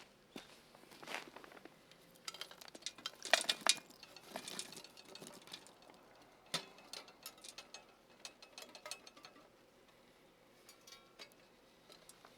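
Metal camping gear clinking and scraping during the cleanup of a wood-stove fire, in a busy run of sharp knocks that thins out after the middle. A brief ringing metallic clink comes near the end.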